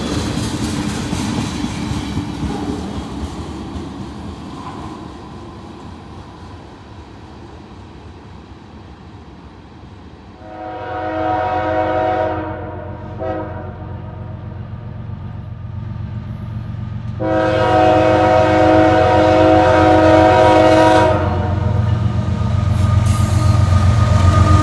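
Freight cars rolling past on the rails, their rumble fading away. Then a diesel locomotive's multi-note air horn sounds two long blasts, the second longer and louder, while the low rumble of the approaching locomotive grows.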